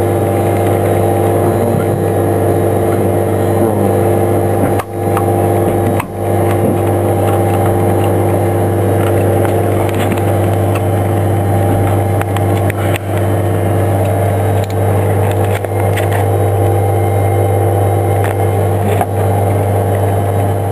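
Steady, loud electrical hum and whine from a Super Guppy's powered-up electrical systems, made up of several steady tones. Short clicks of cockpit toggle switches being flicked come through, with two brief dips in the hum about five and six seconds in.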